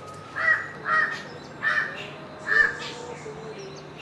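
A bird calling four times, each call short and loud, spaced about half a second to a second apart.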